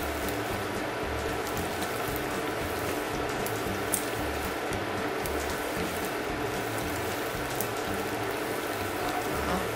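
Hot oil sizzling steadily as a round sticky-rice cake (xôi chiên phồng) deep-fries and begins to puff up, with a single click about four seconds in.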